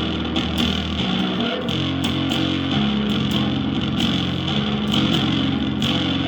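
Bass guitar making freestyle noise: sustained, rattly low notes that change pitch every second or so, with metallic, buzzy overtones and frequent clicks from the strings.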